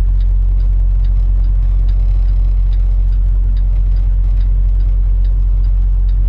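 Diesel engine of a Freightliner semi truck running steadily at low revs, heard from inside the cab as the truck creeps slowly across the lot. A faint, even ticking about two times a second runs over the steady rumble.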